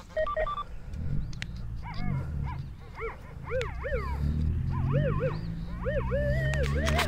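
An animal calling over and over: about ten short calls that rise and fall in pitch, then a longer wavering call near the end, over a low steady hum. Two short, steady beeps come just at the start.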